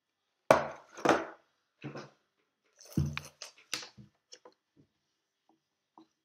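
Stiff cardboard board-game pieces handled and knocked on a wooden tabletop: a string of sharp knocks and rustles, the loudest about half a second and a second in and again around three seconds in, then lighter taps.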